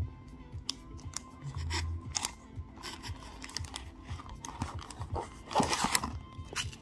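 Pokémon card booster pack's foil wrapper crinkling and crackling as it is handled, with a louder rustle about five and a half seconds in.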